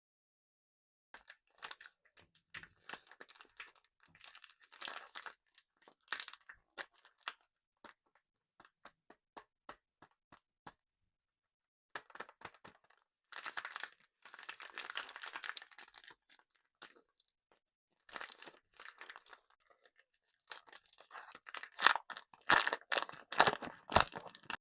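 Close-miked candy ASMR: crisp crackling and crunching in several bursts, with short silent gaps between them, loudest near the end.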